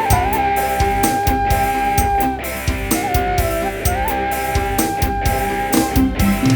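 Live dangdut band music: a lead melody holds long notes with small bends over regular drum hits and bass.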